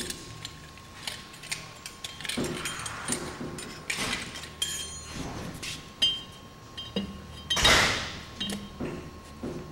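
Metal clinks, clicks and scraping from hand work on a radial-engine cylinder as it is slid down over the piston and its compressed rings, with a louder scrape about eight seconds in.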